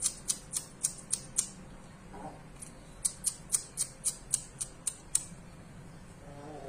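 Short low clucking calls from chickens, about two seconds in and again near the end, over rapid high-pitched clicking at about four clicks a second in two runs.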